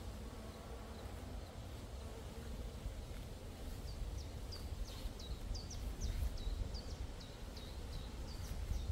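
A songbird singing a quick run of short, high, repeated notes, about three a second, starting about four seconds in. A steady low rumble runs underneath.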